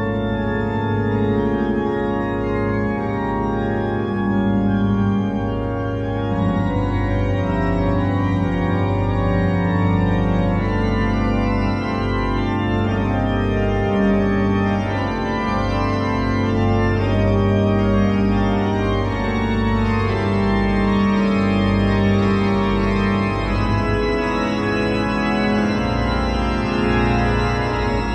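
Church pipe organ played: full held chords over a deep sustained bass, the harmony changing every second or two.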